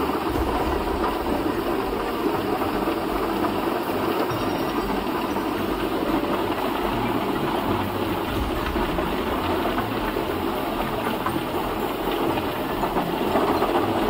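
Truck-mounted Jenz HEM 820 drum chipper and its carrier's diesel engine running, a steady mechanical din that swells near the end as the crane pushes logs into the infeed.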